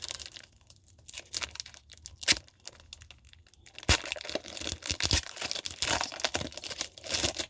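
Foil Pokémon TCG booster pack wrapper being torn open and crinkled: irregular crackling and tearing, sparse at first and denser from about four seconds in.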